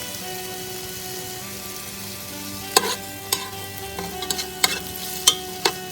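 Chicken cooking in a pan with stock, with a steady sizzle; from about halfway through, a cooking utensil knocks and scrapes against the pan several times while stirring.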